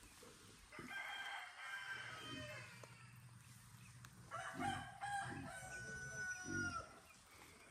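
A rooster crowing twice, each crow lasting about two seconds, the second trailing off in a falling tone.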